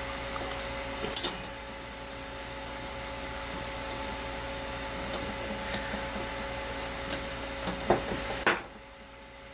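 A few light clicks and taps of plastic bulb parts as an LED board is pried out of a plastic LED bulb housing, the loudest about eight seconds in. Under them a steady hum with a constant tone cuts off abruptly near the end.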